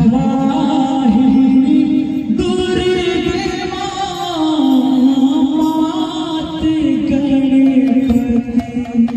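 Live Odia kirtan devotional music: a lead singer on a microphone sings long held notes with vibrato over the sound system, the melody stepping up and then back down, with hand-drum strokes beneath.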